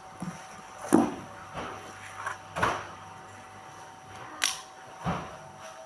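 Packaging and product bottles being handled and set down during an unboxing: a string of short knocks and rustles, the sharpest about a second in, with others near the middle and toward the end.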